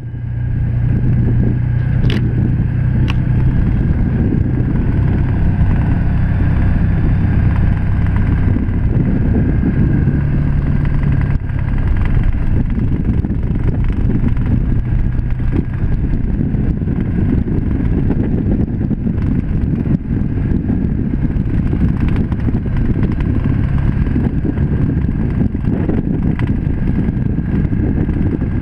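Can-Am Commander 1000's V-twin engine running steadily at about 3,500 rpm, heard from the cab as the side-by-side drives along a gravel road, with gravel noise from the tyres and a couple of sharp stone clicks two or three seconds in.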